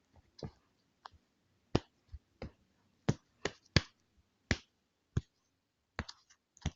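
Computer keys pressed one at a time: about a dozen short, separate clicks at uneven intervals.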